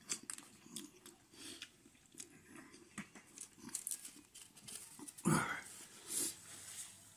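A person chewing a mouthful of food close to the microphone, making small wet mouth clicks, with a short, louder breath-like sound about five seconds in.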